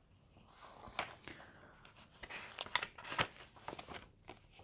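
Faint scattered clicks and short rustles, a handful of light handling noises in a quiet small room.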